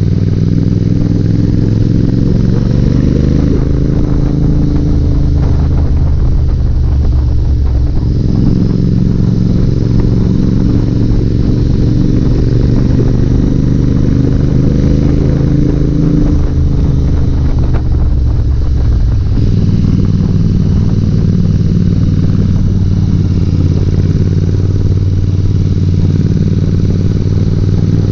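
Motorcycle engine running at riding speed, heard from the rider's own bike. The engine note eases off and picks up again a few times as the throttle is closed and reopened.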